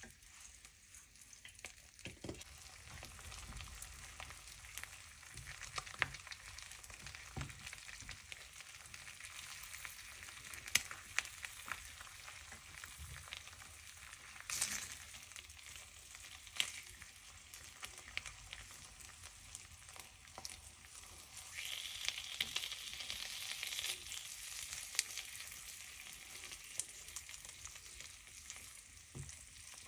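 Food sizzling in a frying pan: a steady hiss with scattered sharp clicks and taps, growing brighter for about two seconds past the two-thirds mark.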